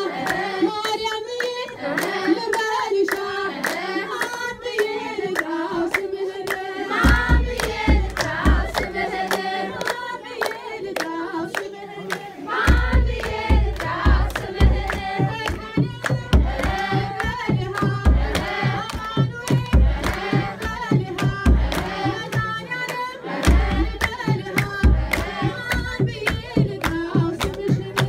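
A group of women sing an Ethiopian Orthodox hymn (mezmur) together, with steady hand clapping. A kebero drum comes in with deep regular beats about seven seconds in and drops out briefly twice.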